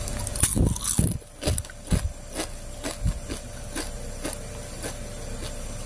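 A crisp sweet-potato onion chip (keripik bawang) being bitten and chewed: a string of sharp crunches, loudest in the first two seconds, then lighter ones about twice a second.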